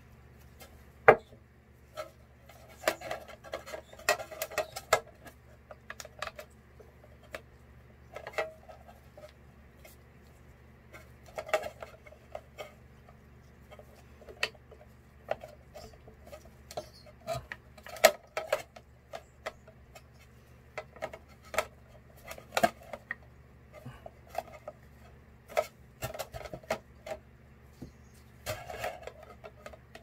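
Small hard objects being handled and set down: irregular light clicks, taps and clatters in small clusters, with a few sharper knocks among them.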